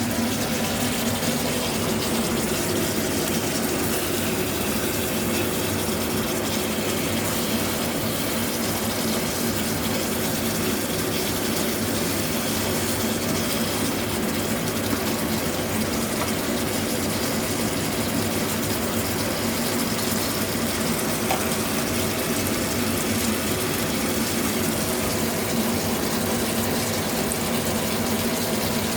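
Cornstarch-coated pork chops frying in hot oil, a steady, even sizzle.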